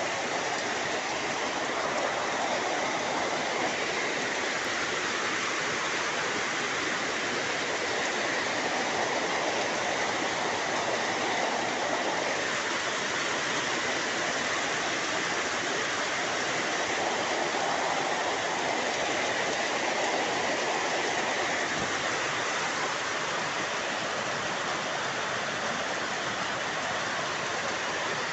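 Heavy tropical rain pouring down steadily.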